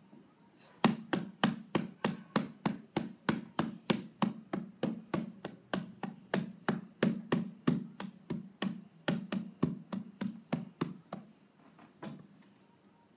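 Fingers tapping out a rhythm on the pads of a Novation Launchpad Mini MIDI controller, about four taps a second. It stops just before the end with one last tap. Only the pads' own knocks are heard; the music they trigger plays in headphones.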